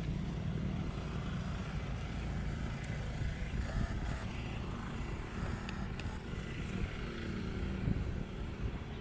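Steady low rumble of a WDM3A diesel locomotive's 16-cylinder ALCO engine running, with a few faint clicks.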